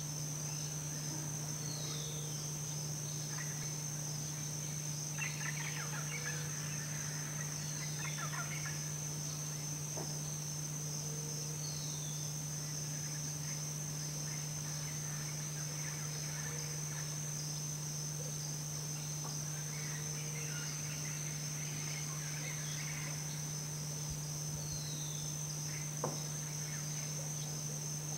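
Tropical forest ambience: a steady high insect chorus over a low steady hum, with a short falling bird chirp every few seconds. Two longer rattling, gobble-like calls come a few seconds in and again about twenty seconds in, and there is a single sharp click near the end.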